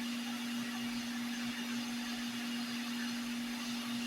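Hot-air rework station blowing steadily: an even rush of air with a constant hum, as the connector's solder is reflowed.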